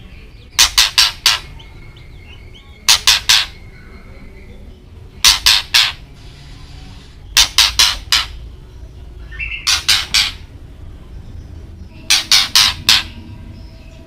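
White-rumped shama giving harsh, clicking chack calls in quick groups of three or four, one group every two seconds or so, with faint softer notes between the groups.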